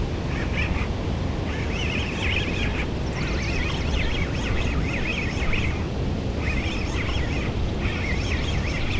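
Wind rumbling on the microphone, with repeated short, high chirping bird calls about once a second.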